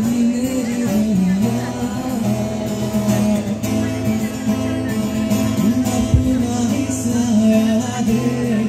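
A man sings a slow Hindi song over an acoustic guitar accompaniment.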